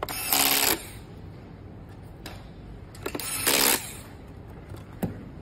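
Cordless electric screwdriver whirring in two short bursts, about three seconds apart, as it turns the screws on a projector's circuit board, with a few light clicks in between.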